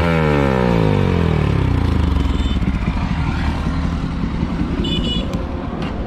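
Bajaj Pulsar NS160 single-cylinder engine through an aftermarket Akrapovic slip-on exhaust: the revs fall away from a held rev over about two seconds, then it settles to a rough, uneven idle burble.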